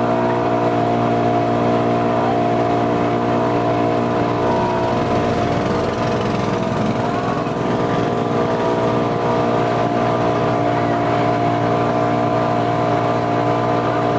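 Motorized outrigger boat's engine running steadily at cruising speed, with water rushing and splashing along the hull.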